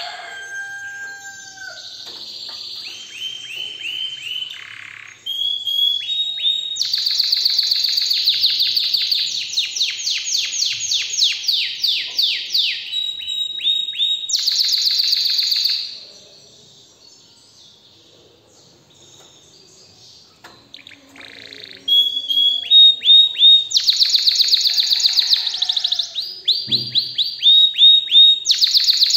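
Domestic canary singing: long phrases of fast trills, quick runs of the same high note repeated many times, changing from one trill to the next. The song stops for several seconds a little past halfway, then starts again.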